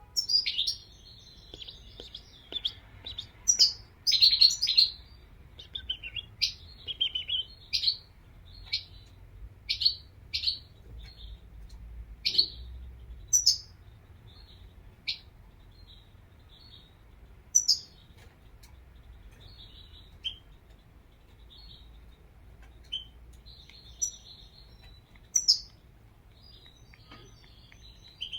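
European goldfinch singing: quick twittering chirps and short trills, busy through the first half, then scattered single calls.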